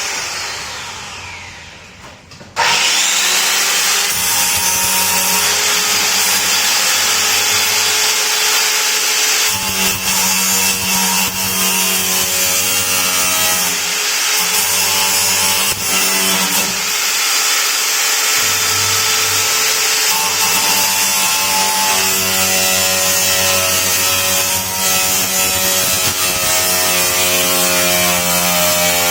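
Electric power tool running under load as it cuts into a steel toolbox lock to force it open. A brief run that winds down, then from about two and a half seconds in a steady motor whine whose pitch wavers and climbs near the end.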